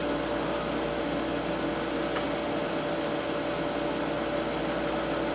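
Steady background hum and hiss of a room fan or air conditioner, with a faint click about two seconds in.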